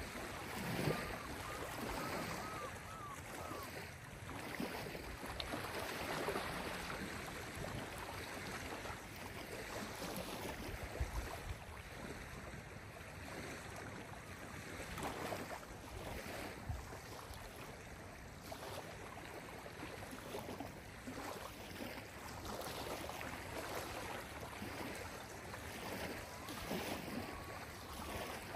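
Small lake waves lapping on a gravel shore, a soft wash that swells and ebbs irregularly every second or few seconds.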